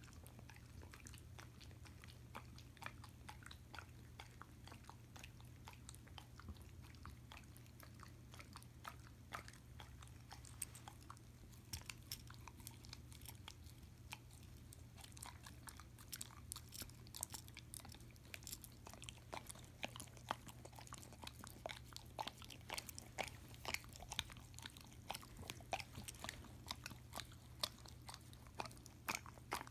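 A German Shepherd licking peanut butter off a spoon: quick wet mouth clicks and smacks, sparse at first and coming thicker and louder in the second half. A steady low hum runs underneath.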